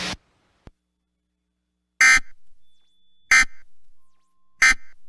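Emergency Alert System end-of-message tones: three short bursts of screeching digital SAME data, about 1.3 seconds apart, marking the end of the alert.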